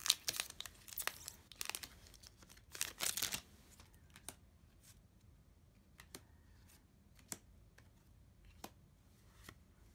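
Foil booster pack of Dragon Ball Super trading cards being torn open and crinkled, loudest about three seconds in and stopping at about three and a half seconds. After that, a few scattered light clicks and taps as the cards are handled.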